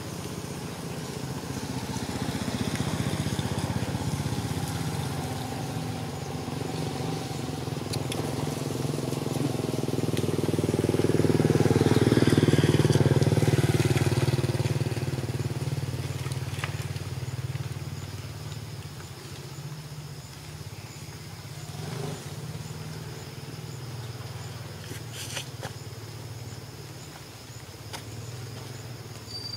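A motor vehicle's engine drones steadily, swells to its loudest about halfway through, then fades away again, as a vehicle passing by does. A few faint clicks sound in the second half.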